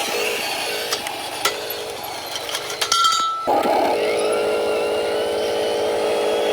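Radio-controlled model truck running, with a steady motor and gear drone, a few light clicks and knocks, and a brief break just past three seconds before the drone cuts back in.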